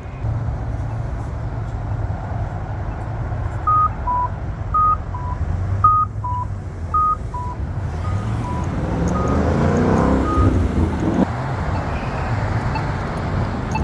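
Steady road traffic at an intersection, with a vehicle passing about ten seconds in. A series of short electronic beeps alternating high and low, about one pair a second, runs from about four seconds in and fades out near ten seconds.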